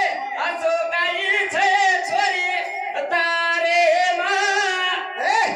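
A man singing a line of a Banjara bhajan into a microphone, holding long notes decorated with quick wavering turns and pitch bends.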